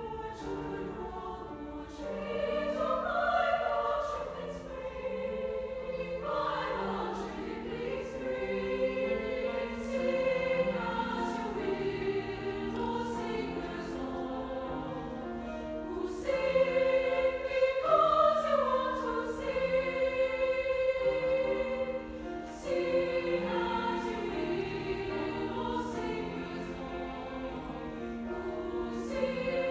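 Women's choir singing in several-part harmony, sustained notes moving in pitch together.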